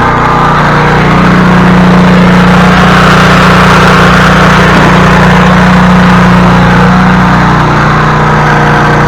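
Small gasoline engine running steadily. Its pitch rises slightly about a second in and drops back near the end.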